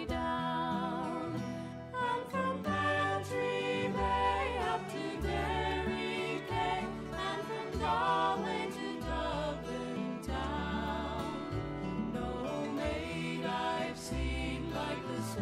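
Background music: a melody with vibrato over a moving bass line.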